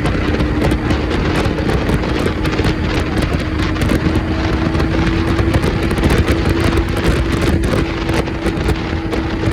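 Wind buffeting the microphone over a steady droning hum.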